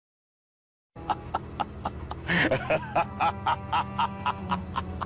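Total silence for about a second, then a meme sound clip: music with a quick, even beat of about four ticks a second over a steady hum.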